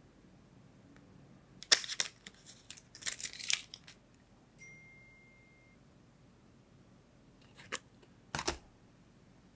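Phone packaging handled by hand: two bursts of crinkling and rustling of cardboard and plastic in the first few seconds as the charger comes out of the box, then two short sharp crackles near the end as a cardboard insert is worked open.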